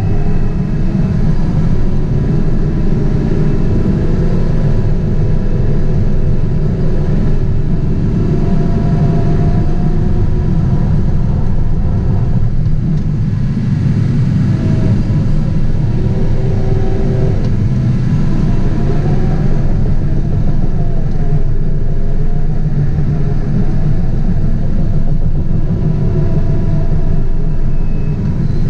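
Caterpillar 973C track loader's six-cylinder diesel engine running steadily under load, heard from inside the cab, with a deep rumble and a higher tone that wavers up and down now and then.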